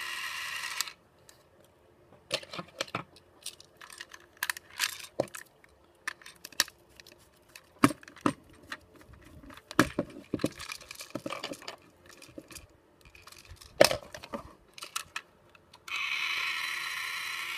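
Small battery motor and gearbox of a Tomy Plarail toy train whirring steadily, switching off about a second in and starting again about 16 s in. In between, scattered clicks and taps of the plastic train being handled and a screwdriver worked at its battery cover.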